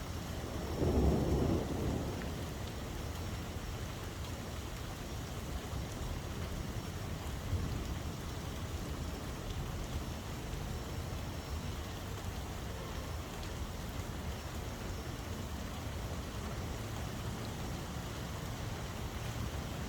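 Steady rain falling, with a brief low rumble of thunder about a second in.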